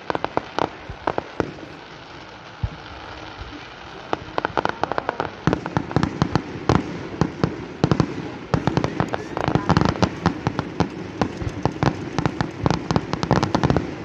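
Fireworks display: many sharp bangs and crackles from bursting shells, scattered at first and coming thick and fast from about five seconds in.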